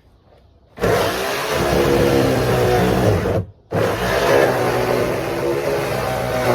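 Chainsaw engine starting up loudly about a second in and running steadily. It cuts out abruptly for a moment about three and a half seconds in, then runs on.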